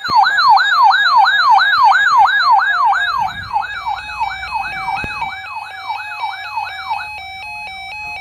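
Electronic siren yelping: a fast wail that rises and falls about twice a second. Partway through, a two-note hi-lo pattern comes in under it, and it takes over alone about seven seconds in.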